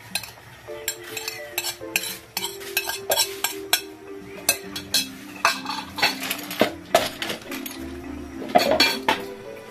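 A metal spoon scrapes a plate and stirs cooked clams in an aluminium pan, with many quick sharp clinks of spoon on metal and shells clattering against each other.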